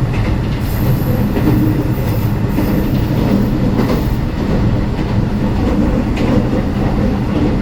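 Meitetsu Panorama Super electric train running on the rails: a steady low rumble of wheels and running gear, with faint rail-joint clicks and a thin high squeal from the wheels during the first few seconds.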